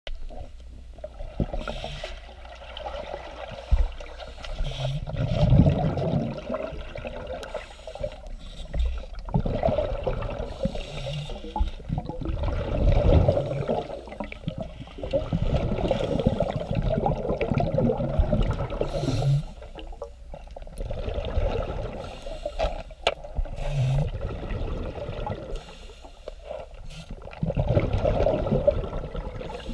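Scuba regulator breathing heard underwater: exhaled air leaves the regulator as gurgling bubble bursts that swell and fade every few seconds.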